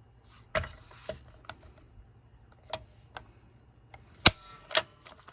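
A desk stapler being handled and pressed on a stack of paper: a scatter of sharp clicks and knocks, the two loudest a half second apart about four and a half seconds in, the second with a brief metallic ring.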